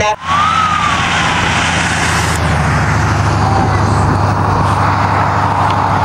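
A motor vehicle engine running steadily under a constant rushing noise, with a brief rising-then-falling tone about half a second in.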